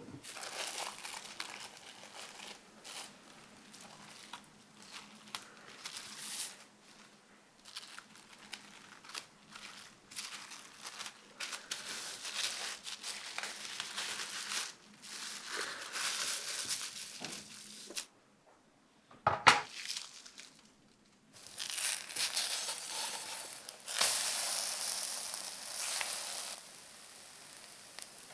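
Baking paper crinkling and rustling in irregular bursts as an egg roll is rolled up tightly in it by gloved hands. A single sharp knock about two-thirds of the way through is the loudest sound.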